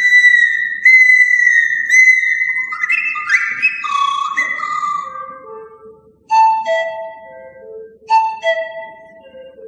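Pan flute playing a high, clear melody with quick stepped rising runs, which fades out about six seconds in. A softer accompaniment takes over, short notes repeating a falling four-note figure about every two seconds.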